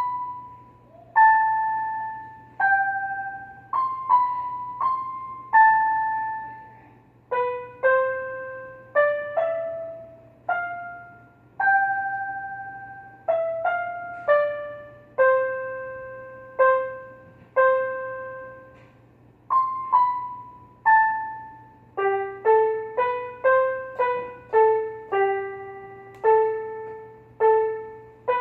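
Toy electronic piano keyboard playing a melody of single notes, each one sharply struck and fading, quickening to shorter notes near the end, over a steady low electrical hum.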